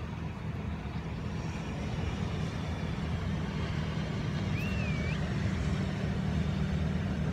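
Steady low rumble of a running vehicle, slowly growing louder. About four and a half seconds in, a short wavering high squeak.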